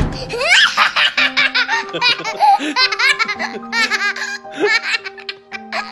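Opens on the fading end of a loud blast from an exploding shell. A toddler girl then laughs hard in repeated high bursts, with a man laughing along.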